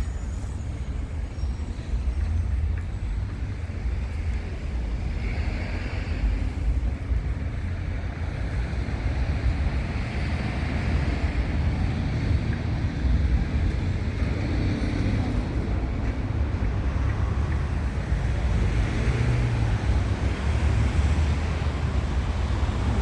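Wind buffeting the microphone: a choppy low rumble over a steady outdoor hiss that swells now and then, like road traffic passing.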